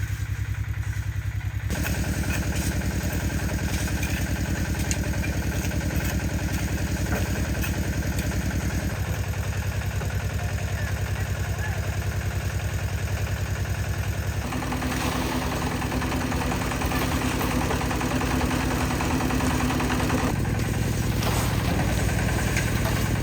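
Concrete mixer's small engine running steadily, with an even firing pulse. Its tone shifts a few times, and a steady hum joins in from about the middle until a few seconds before the end.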